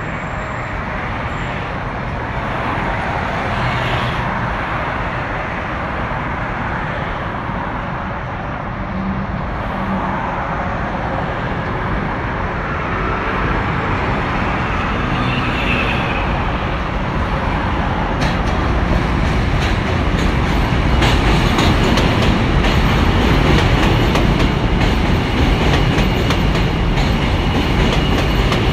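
New York City subway train running across a steel bridge, getting louder as it approaches. From about two-thirds of the way in, rapid clickety-clack of the wheels over the rail joints comes in over the rumble.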